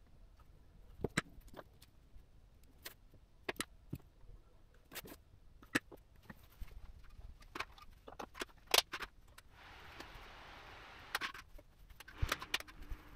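Scattered sharp clicks and taps of small tools being handled on a workbench: tweezers, strips of SMD component tape and a soldering iron. A soft hiss comes in about ten seconds in for two seconds, and a steady low hum starts near the end.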